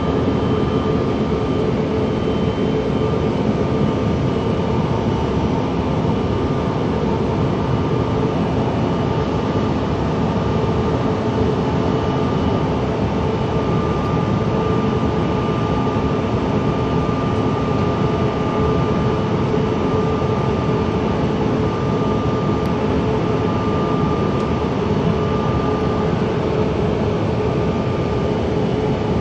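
Cabin noise inside a Bombardier CRJ900 regional jet climbing after takeoff: the steady rush and drone of its two rear-mounted General Electric CF34 turbofans and the airflow, with a few constant tones over it.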